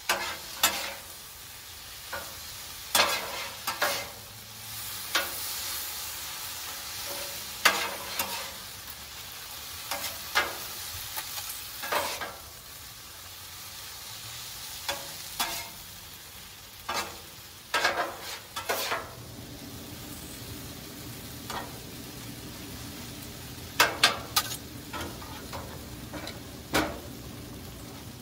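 Metal spatulas scraping and clacking irregularly on the steel top of a Blackstone griddle as food is tossed and mixed, over steady sizzling of the food frying in oil and sauce.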